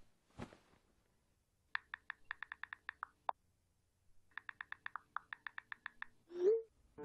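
Smartphone on-screen keyboard clicking as a text message is typed: two runs of quick ticks, each about a second and a half long. Near the end comes a short rising phone message tone, the loudest sound, and there is a soft rustle of movement just after the start.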